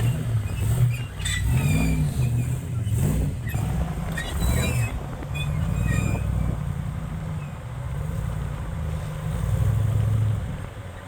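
Off-road UTV engine working a rock-crawling obstacle, the revs rising and falling in repeated throttle blips. Scattered knocks and scrapes in the first half, typical of tires and chassis working over rock.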